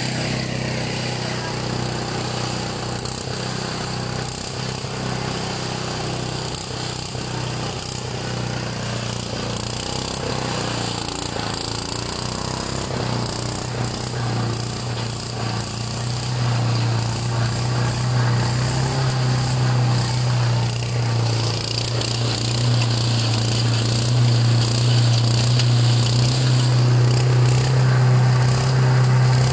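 Small gasoline engine running a garden shredder that chews leaves and branches into mulch, a steady drone that grows louder about halfway through.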